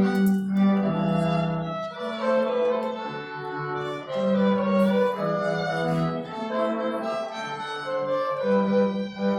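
A string quartet playing: violins and cello bowing sustained notes together, the chords changing about every second.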